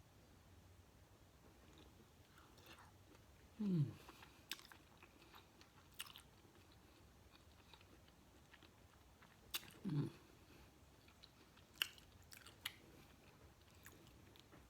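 Close-mic eating sounds: chewing and biting with scattered wet clicks, and twice a short falling hum from the eater.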